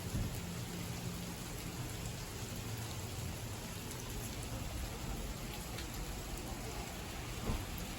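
Heavy rain falling steadily, a dense hiss with scattered drops tapping close by and a couple of sharper taps. A faint low drone underneath fades out about two seconds in.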